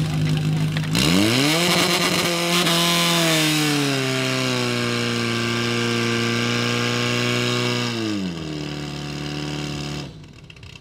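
Portable fire pump's engine revved up sharply from idle about a second in and held at high revs while pumping, then throttled back down near the end, after which the sound drops away suddenly.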